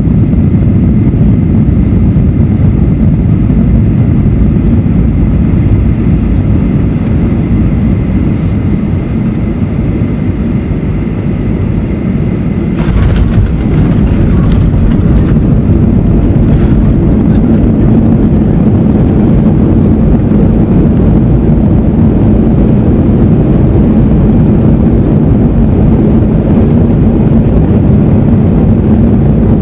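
Inside the cabin of a Boeing 737-800 on landing: the steady rumble of its CFM56 engines and the airflow, with a thin high whine. About halfway through, a cluster of knocks and rattles comes as the main wheels touch down and the whine stops. The rollout rumble follows.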